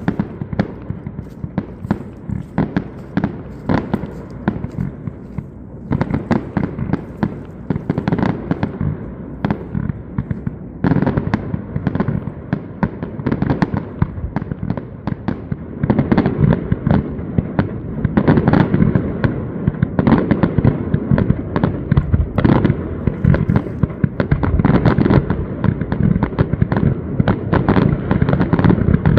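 Fireworks display: a dense, continuous run of rapid bangs and crackles, growing louder about halfway through.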